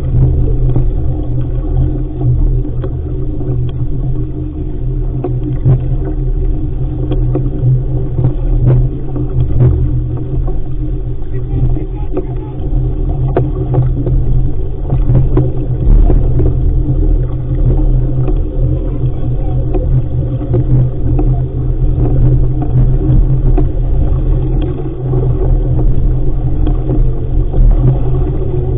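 Wind buffeting the microphone of a camera on a sailing dinghy: a loud, steady low rumble, with scattered small knocks.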